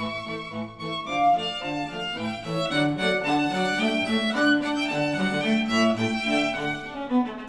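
Instrumental music with bowed strings, played back through HIFIMAN Edition XS open headphones and picked up by measurement microphones at the earcups.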